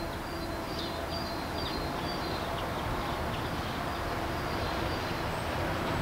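Steady background rumble with faint, short, high bird chirps over the first half; no woodpecker drumming.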